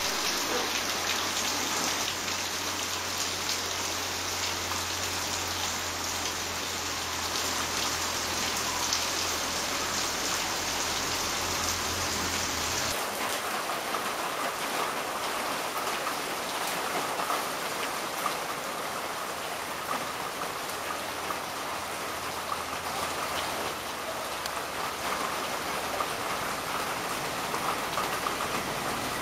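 Steady rain falling on a wet gravel yard and puddles, an even hiss that changes abruptly about thirteen seconds in.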